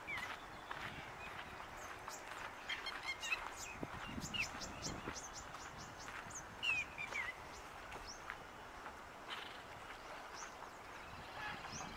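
Wild birds calling over a steady outdoor hiss: quick chips and clicks, and short down-slurred whistled notes about four seconds in and again near seven seconds.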